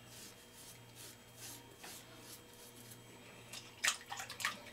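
Gillette Mach 3 three-blade razor scraping over stubble in short, soft strokes, about two a second, shaving with the grain. About four seconds in, a few quick sharp clicks.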